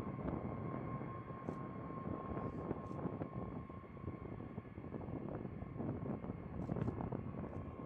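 Boeing B-52 Stratofortress's eight jet engines heard from a distance as the bomber comes in low over the runway to land: a steady rumble with a thin whine on top.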